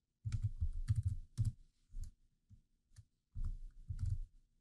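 Typing on a computer keyboard: a quick run of keystrokes, a few single taps, then another quick run.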